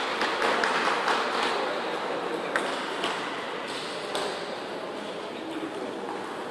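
A few sharp clicks of a table tennis ball, the clearest about two and a half seconds in, over the steady background noise of a large sports hall.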